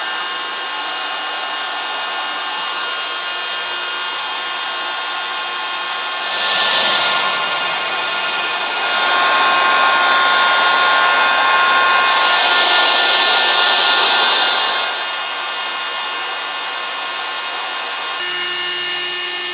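Ryobi ONE+ cordless high-volume inflator running steadily as it pumps up a queen-size air mattress: a steady fan whine over a rush of air, louder for several seconds in the middle.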